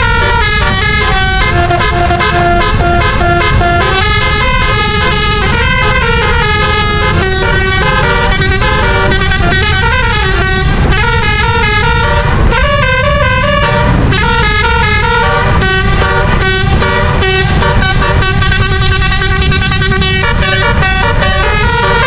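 Telolet musical air horn on the QQ Trans 'Voltron' bus, a roof-mounted set of twelve trumpets, playing a quick tune of changing notes without a break, loud over a steady low rumble.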